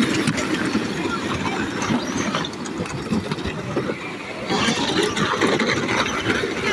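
Battery-powered Power Wheels ride-on toy cars driving and bumping, their electric gearboxes whirring and ratcheting amid a dense, steady clatter.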